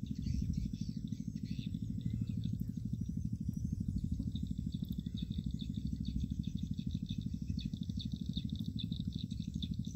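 A steady, low engine drone with a fast even pulse, with faint high chirps over it.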